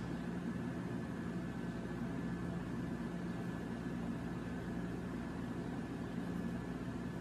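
Steady background hum and hiss with no distinct events: room tone under the recording.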